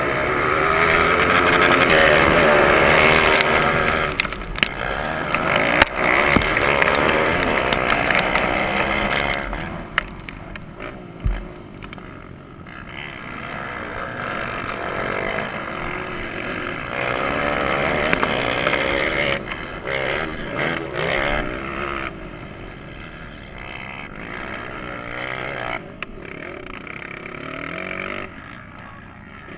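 Motocross dirt bikes revving hard off the start, loudest in the first several seconds as the pack launches together. After that one bike's engine dominates, its pitch rising and falling over and over as the rider opens and closes the throttle through the gears.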